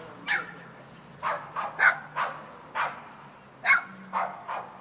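A dog barking repeatedly, short sharp barks coming singly and in quick runs of two or three, about ten in all.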